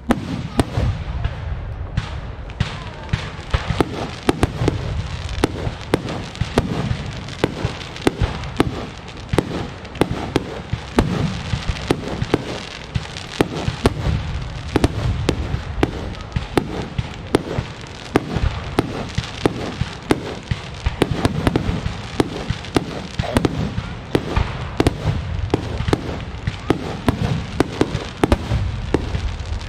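Fireworks display: a dense, unbroken barrage of aerial shell bursts and crackle, many bangs each second over a deep rumble. It starts abruptly and keeps going.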